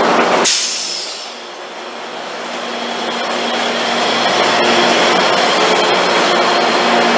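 Metrolink diesel locomotive passing close by, its engine and cooling fans running with a steady hum and whine that builds up in loudness. The sound changes abruptly about half a second in.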